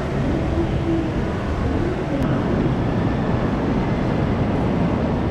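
Steady low rumble of an underground railway station, with trains standing at the platforms.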